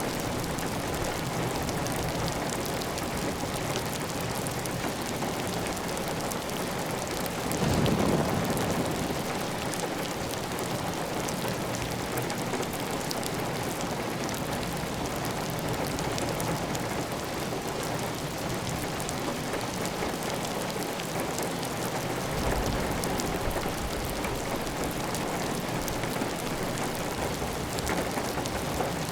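Heavy, steady rain on a clay tile roof, with water running off the roof edge. A brief low swell about eight seconds in rises above the steady rain.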